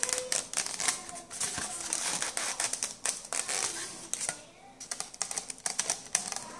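Styrofoam glider wing being pushed into the slot of the foam fuselage by hand: rapid, irregular scratching and clicking of foam rubbing on foam, close up. It thins out for a moment about two-thirds of the way through, then starts again.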